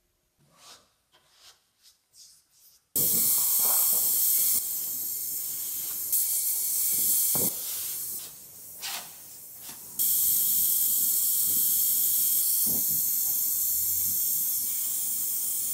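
Near silence with a few faint ticks, then about three seconds in a gas torch flame starts hissing steadily as body solder is heated on a steel panel edge for lead loading. The hiss steps in level a few times and drops away briefly near the middle.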